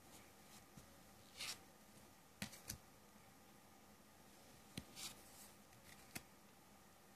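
Faint swishes and light taps of playing cards from a Grand Jeu de Mlle Lenormand deck being slid off the pile and set down, about six small sounds scattered through the quiet.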